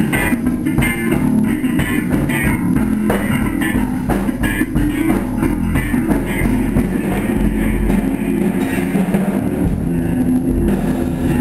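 A small live rock band playing loudly: an electric guitar over a drum kit, with the drum hits sharpest in the first half.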